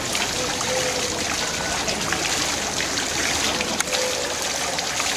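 Steady rush of running or falling water, an even hiss with a few small clicks in it.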